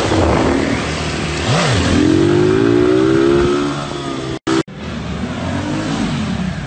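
Motorcycle engines revving and accelerating, the pitch climbing as the throttle is opened. The sound breaks off for a moment about four and a half seconds in, then another engine runs on.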